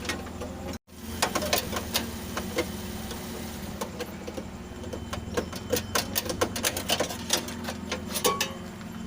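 Irregular clicks and taps of hand tools and small metal parts being worked inside a car door, several a second, over a steady low hum, with a brief cut-out just under a second in.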